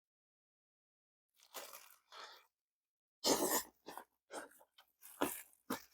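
Close-up crunching and chewing of crispy-skinned fried chicken: a string of crunchy bites and chews starting about a second and a half in, the loudest just past the middle.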